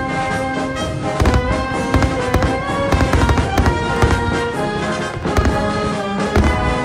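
Aerial fireworks shells bursting in rapid bangs, several a second, over music with long held notes.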